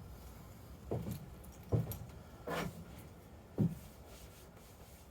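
Four short knocks and clunks of parts or tools being handled, about a second apart, over a faint steady low hum.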